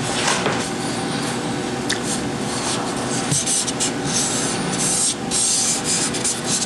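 Brush and handle scratching and rubbing through thick printing ink on a monotype plate, in quick irregular strokes.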